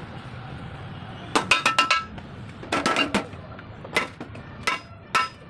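Metal being struck with a hammer during repair work on a Tata Ace truck, each blow ringing briefly. The blows are irregular: a quick run of several strikes, then another short group, then single strikes about every half second.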